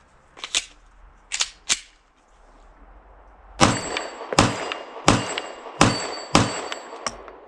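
Five shots from a Glock 45 MOS 9mm pistol firing Federal 115-grain factory ammunition, about 0.7 s apart, with steel targets ringing from the hits, after a few light clicks of the pistol being handled. The string stops after the fifth shot with a small click: a malfunction, which the shooter puts down to the Magpul magazine.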